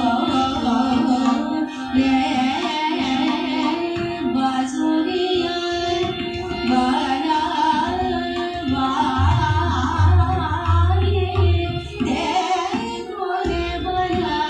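Hindustani classical khayal in Raag Jaunpuri: a woman singing over a steady drone, accompanied by tabla and harmonium. Deep bass strokes of the tabla grow prominent from about nine seconds in.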